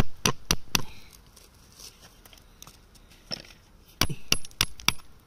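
Hammer and chisel chipping rock away from around an amethyst crystal: four quick, sharp metallic strikes, a pause of about three seconds, then four more near the end.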